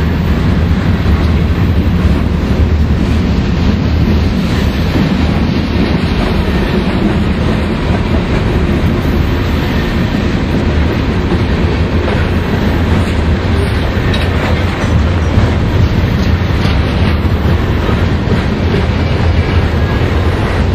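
Freight trains passing on a mountain grade: a steady low rumble of diesel locomotives and rolling freight cars, with the clickety-clack of wheels on rail joints.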